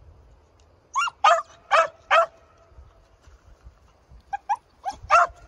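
Young beagle barking while trailing a rabbit on its own: four barks in quick succession starting about a second in, then a quieter pair and two more near the end.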